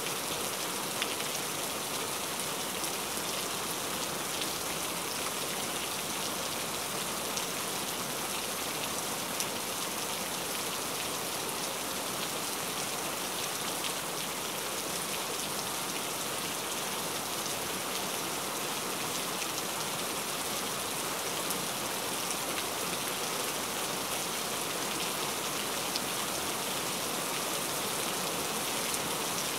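Heavy rain falling steadily, an even hiss with a few sharper drop ticks here and there.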